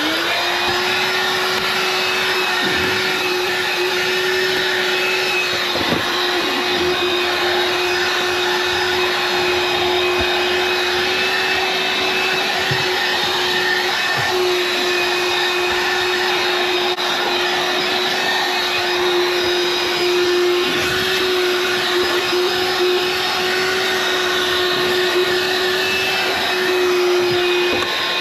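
A 20-volt cordless portable vacuum running steadily while vacuuming a car's interior: a constant motor whine over the rush of air, with small wavers in level as the nozzle works over surfaces.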